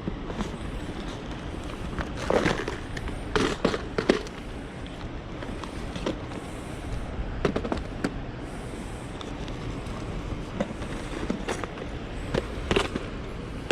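Irregular sharp clicks and knocks of fishing tackle being handled, over a steady low rush of wind and river current.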